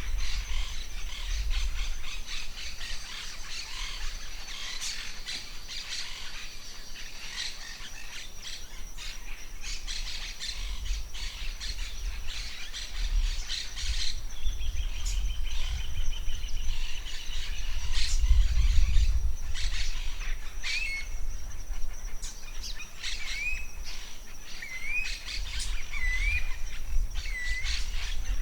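Forest birds chirping and calling, with a steady high-pitched tone underneath. About two-thirds of the way in, one bird starts repeating a short rising note roughly once a second. A low wind rumble on the microphone swells in the middle.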